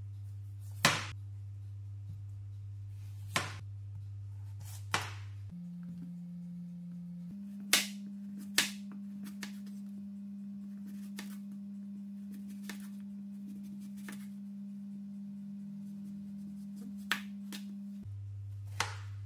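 Chef's knife cutting lengthwise through a zucchini and knocking down onto the cutting board: about seven sharp knocks at irregular spacing, with a long gap in the middle. Under them runs a steady low hum that steps up in pitch about five seconds in and drops back near the end.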